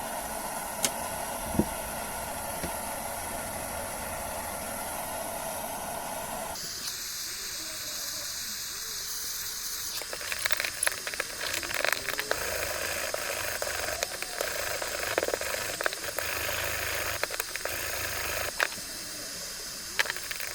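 Blowtorch flame hissing steadily as it burns paint off a steel door hinge. The hiss changes about six seconds in, and from about ten seconds on it is mixed with crackling.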